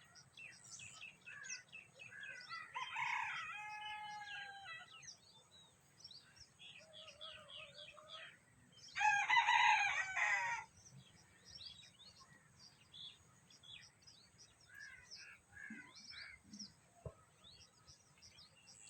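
Two loud calls from farm animals, the first about three seconds in and the louder second about nine seconds in, each lasting a second or two, over a steady scatter of small birds chirping.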